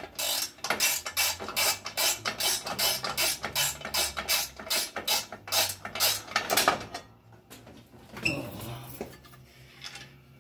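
Hand work on a metal guard of a 1958 Brunswick A2 pinsetter as it is unfastened and taken off: rapid metallic clicking, about four clicks a second, for some seven seconds. Then, about eight seconds in, metal scrapes and clatters as the guard comes free.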